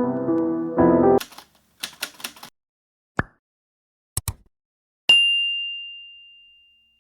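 Piano music stops about a second in. A run of quick sharp clicks and clacks follows, then a single high bell-like ding that rings out and fades over nearly two seconds.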